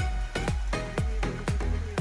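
Background electronic dance music with a steady four-on-the-floor kick drum, about two and a half beats a second, under sustained synth notes.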